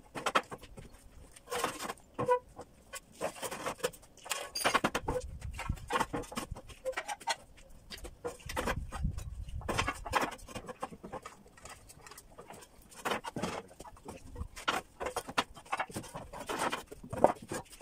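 Roof tiles knocking and clattering, irregularly, as they are handed up, handled and set in rows on wooden roof battens, with a few short ringing clinks among the knocks.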